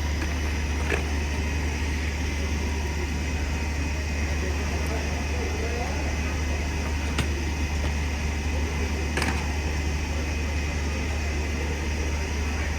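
Steady low mechanical hum with an even wash of noise, broken by a few faint clicks.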